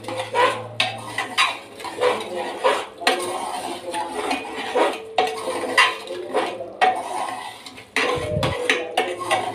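Metal spoon stirring thick liver masala in a metal pressure cooker, clinking and scraping against the pot's sides with irregular knocks, a few each second.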